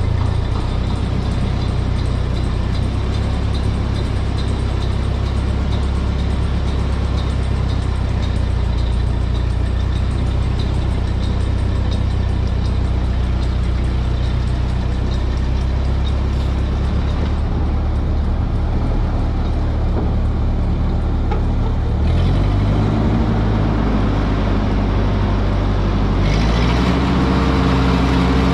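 Ford 8N tractor's four-cylinder flathead engine running steadily, its engine speed changing about twenty-two seconds in and again near the end.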